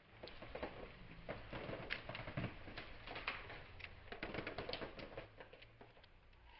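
Faint, irregular patter of small clicks and crackles: water splashing onto a hand and dripping off the fingertips.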